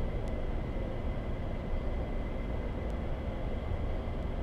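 Steady low rumble of outdoor background noise, with a faint steady high-pitched tone over it and a few faint ticks.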